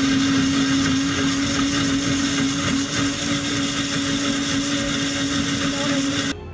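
7-Eleven Seven Café smoothie machine blending a smoothie in its cup: a steady motor whir with a low hum, cutting off suddenly near the end.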